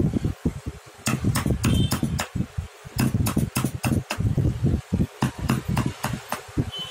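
A thin steel carving tool scratching and picking at a carved wooden elephant: a run of sharp, irregular clicks and scrapes that begins about a second in. Underneath is an uneven low rumble.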